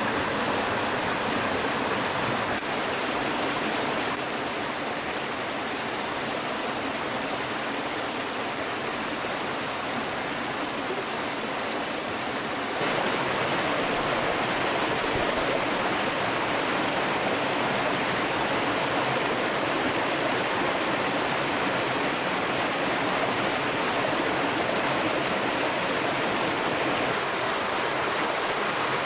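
Steady rush of a stream's flowing water, an even noise that dips slightly a few seconds in and grows louder again about halfway through.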